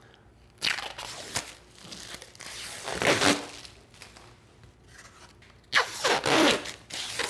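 Freshly CNC-cut extruded acrylic French curves scraping and knocking as they are lifted off the spoil board and handled, in several short spells. Near the end comes the sound of the blue protective film being pulled off the acrylic.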